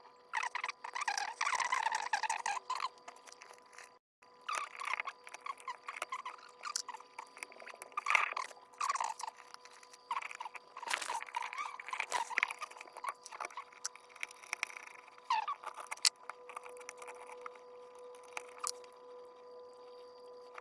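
Small clicks, scrapes and rattles of hands and tools working on a wall socket and its fittings, irregular and busy, with the sound cutting out briefly about four seconds in.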